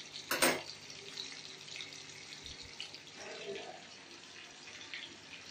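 Whole fish shallow-frying in oil in a karahi: a steady sizzle with scattered small pops and crackles, after two sharp knocks near the start.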